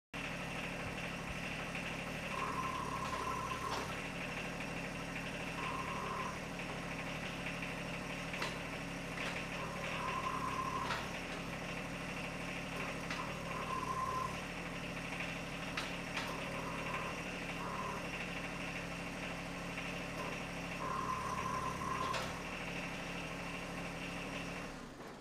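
John Deere 1025R sub-compact tractor's three-cylinder diesel running steadily while the loader hydraulics work the grapple. A short whine comes from the hydraulics about six times as the grapple is curled and its clamps are opened and closed.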